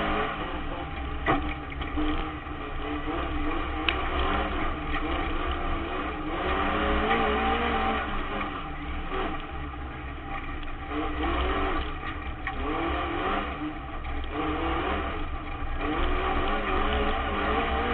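Autograss race car's engine heard from inside the cabin, its revs rising and falling again and again as the driver accelerates and lifts, over steady road noise. Two sharp knocks come in the first few seconds.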